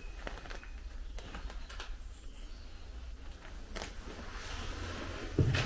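Footsteps on a grit-strewn concrete floor: a few irregular light crunches and scuffs over a low rumble, echoing slightly in the tunnel.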